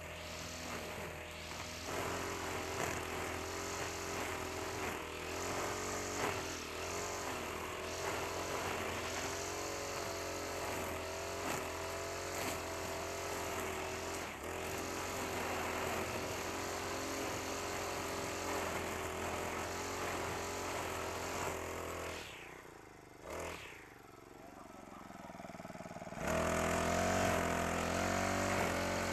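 Backpack brush cutter's Honda GX35 four-stroke engine running at cutting speed while its trimmer head sweeps through grass. About 22 seconds in the engine note drops away for a few seconds, then comes back higher and louder near the end.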